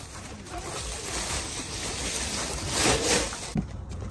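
Thin plastic sheet rustling and crinkling as it is handled, loudest about three seconds in, then cut off suddenly near the end.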